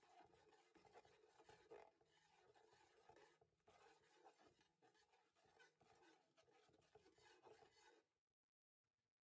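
Faint scraping of a slotted metal spatula against the bottom of a metal pot while stirring spices in ghee. It cuts out about eight seconds in.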